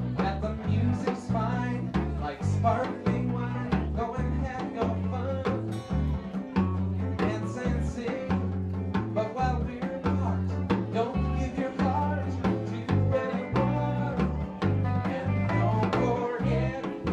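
Live band playing a song: electric guitar, a low bass line stepping from note to note and drums, with a singer at the microphone.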